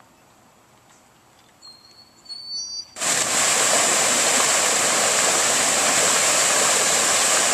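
Water pouring through a small wooden weir and crashing into a foaming pool: a loud, steady rush that starts suddenly about three seconds in. Before it, faint outdoor background with a few brief high whistling tones.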